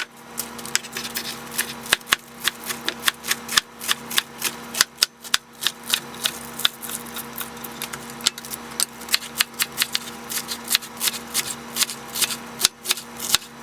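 Knife chopping a whole head of lettuce on a cutting board: quick, irregular sharp chops, several a second, over a faint steady hum.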